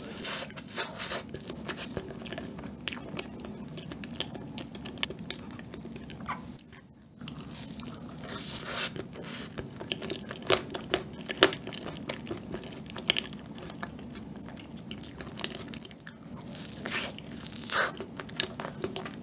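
Close-miked biting and chewing of a soft cake, with many short mouth clicks and smacks and a brief lull about a third of the way through.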